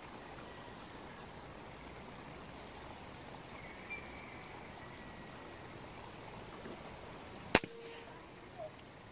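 A single sharp air rifle shot about seven and a half seconds in, over faint, steady outdoor background noise.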